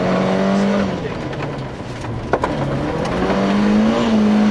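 Volvo 240 rally car's engine heard from inside the cabin, running hard, then lifting off about a second in as the car slows for a bend. Gravel clatters against the underbody with one sharp crack, then the engine pulls hard again, revs climbing back up near the end.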